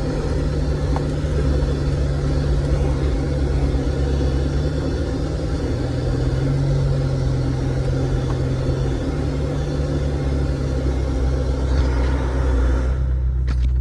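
A vehicle engine running steadily at low speed with a low drone, under a wide rushing noise that drops away suddenly near the end while the engine goes on.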